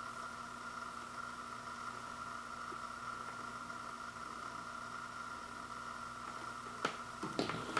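Steady low electrical hum and hiss of room tone, with two small clicks near the end.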